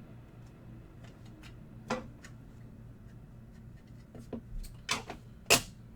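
Trading cards and packs being handled on a table: a few scattered taps and clicks, the loudest about five and a half seconds in, over a steady low hum.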